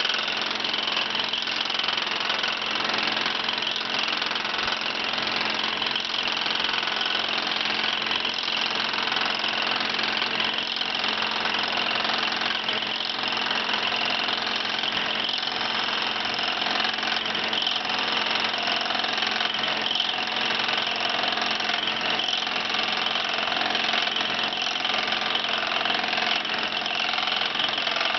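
Ober No. 11 copy lathe running steadily, its spinning cutterhead shaving a hickory axe handle blank to shape. The result is a continuous machine whir over a steady hum.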